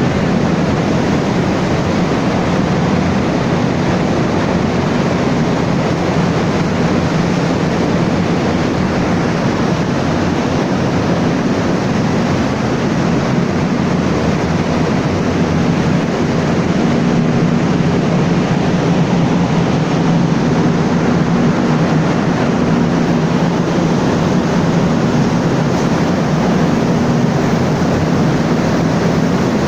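Caterpillar 3616 V16 diesel generator engine running steadily at a constant speed, a loud, even engine drone.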